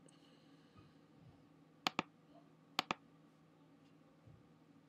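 Computer mouse button clicked twice, about a second apart, each click a close pair of sharp ticks, over faint room hum.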